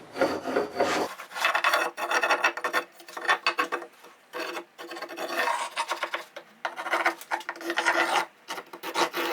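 Beam compass pencil scratching across plywood in a run of uneven rasping strokes as it draws a circle.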